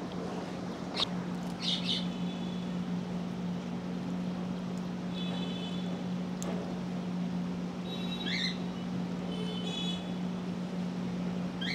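Small birds chirping now and then, a few short high calls spread through, over a steady low hum.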